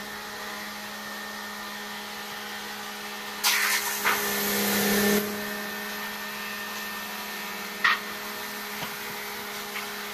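Electric wood lathe running with a steady motor hum while a large log turns on it, a cutting tool biting into the spinning wood with a loud scraping hiss for about two seconds a third of the way in and briefly again near the end.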